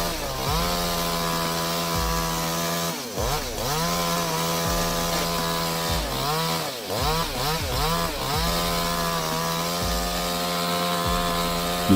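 Two-stroke chainsaw running at full throttle with a steady high whine. It eases off and revs back up about three seconds in, blips several times in quick succession a little past halfway, and drops once more near the end.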